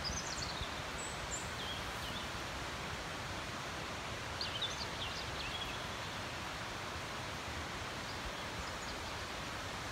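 Steady outdoor forest ambience, an even rustling hiss, with a few short high bird chirps near the start and again about four and a half seconds in.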